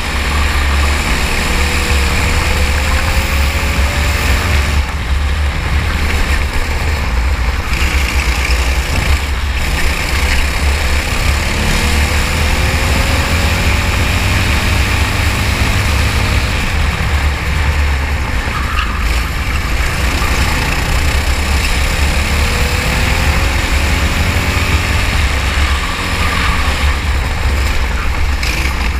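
Racing kart engine running at speed through a lap, its pitch rising three times, about ten seconds apart, as it accelerates, over a heavy low rumble.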